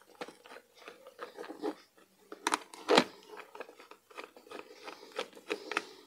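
Small screwdriver backing screws out of a plastic RC transmitter case, with scattered clicks, scrapes and creaks of hard plastic being handled. Two sharper clicks come about halfway through.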